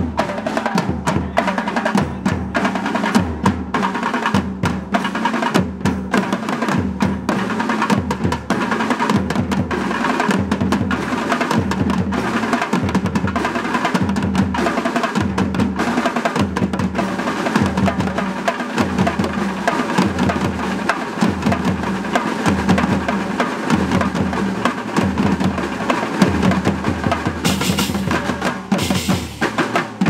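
A percussion ensemble of snare drums, marching drums and a cymbal plays together with a thavil, a South Indian barrel drum. The dense, fast strokes sit over a heavy low drum beat about once a second.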